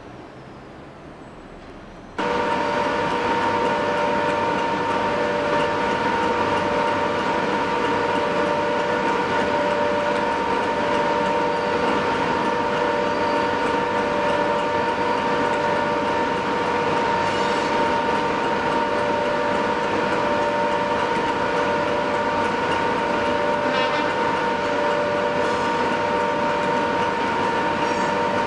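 Diesel train engine running steadily, a drone of several held tones with a whine that does not change. It starts abruptly about two seconds in.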